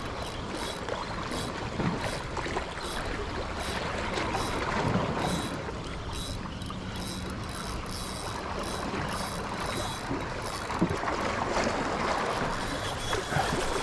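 Wind and small sea waves washing along the shore: an even rush of noise with a few faint ticks.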